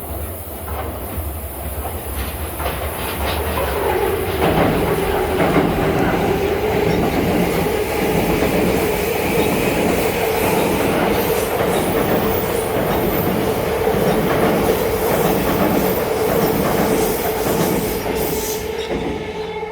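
Yamanote Line electric train passing close by at the level crossing, wheels clattering rhythmically over the rail joints. It builds about four seconds in, stays loud, and falls away near the end.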